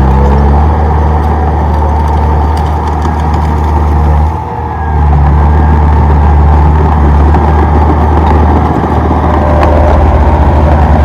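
Komatsu D31P bulldozer's diesel engine running steadily, with a brief dip in engine sound about four and a half seconds in.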